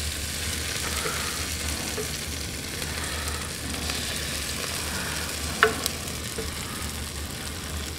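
Melted lemon butter sizzling as it is drizzled onto flour-coated cod fillets in an air fryer basket preheated to 400°F: a steady sizzle, with one small click about five and a half seconds in.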